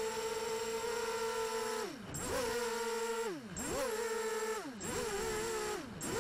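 Whine of a ZMR-250 mini quadcopter's brushless motors and propellers in flight. The pitch is steady at first, then drops and swoops back up about four times as the throttle falls and recovers.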